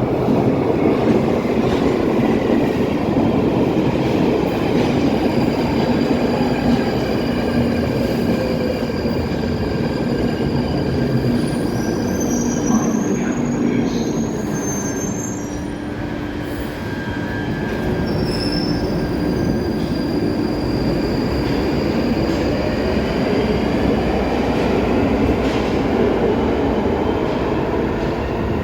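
Electric passenger train running through the station on the rails, with a steady rumble and thin high-pitched wheel squeal. Whining tones fall in pitch in the first half, and a slight lull comes around the middle before the whining rises again near the end.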